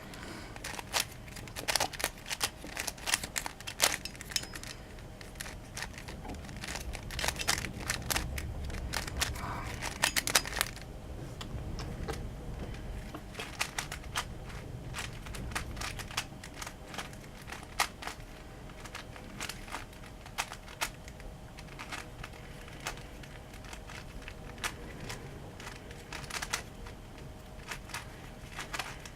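DaYan Megaminx puzzle being turned by hand, its plastic pieces clicking and clacking in quick runs. The clicks come thick for the first ten seconds or so, then more scattered.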